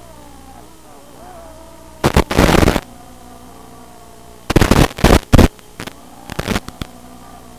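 Loud bursts of hissing static from the FPV goggles' analog video receiver audio: one long burst about two seconds in, a tight run of several bursts in the middle, and weaker ones near the end. Between them a faint whine, from the quadcopter's brushless motors, glides up and down in the first second or so.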